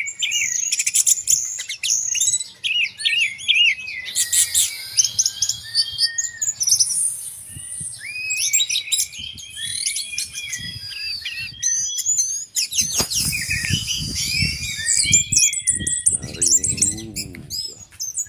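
Orange-headed thrush singing a fast, varied song of high whistles and chattering phrases. About two-thirds of the way through there are low knocks and rustling.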